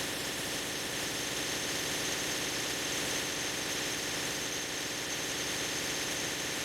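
CNC turning center running during machining: a steady whir and hiss with faint constant hum tones.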